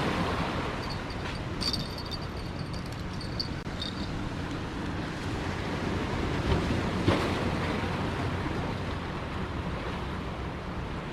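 Ocean surf washing on the beach, with wind rumbling on the microphone.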